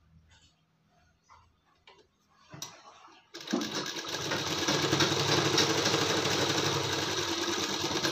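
Soft fabric-handling clicks, then about three seconds in a sewing machine starts and runs steadily at speed, stitching a dart through a blouse panel and its lining.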